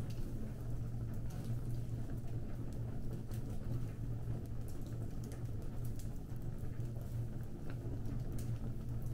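Fire burning, with scattered small crackles and pops over a steady low rumble.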